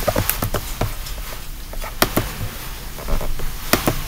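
Stylus tapping on a tablet's touchscreen: a string of irregular sharp taps and clicks, bunched a few at a time.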